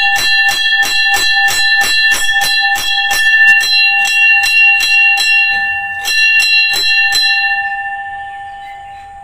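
A puja bell rung rapidly, about three strikes a second, with its clear metallic tones ringing on between strikes. After a short last run of strikes near the end, the ringing dies away.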